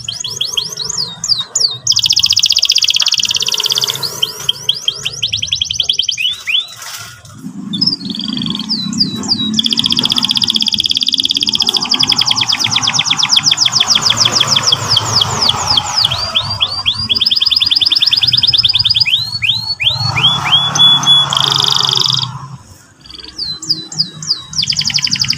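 Domestic canary singing: long, rapid trills of quickly repeated sweeping notes, switching to a new trill every few seconds.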